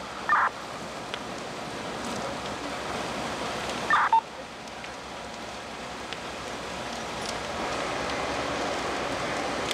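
Steady rushing noise at a fully involved house fire, broken twice by short, loud electronic beeps: once about half a second in and once about four seconds in.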